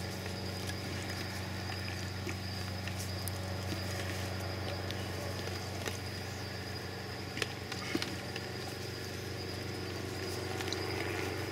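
Steady low hum of a motor or machine, with a constant high-pitched insect trill over it and a couple of faint clicks a little past the middle.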